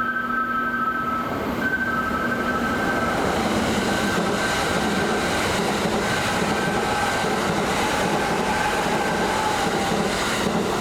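Kintetsu commuter train running through the station without stopping, a steady loud rumble of wheels on rail that swells about two seconds in, with a faint wheel squeal in the second half.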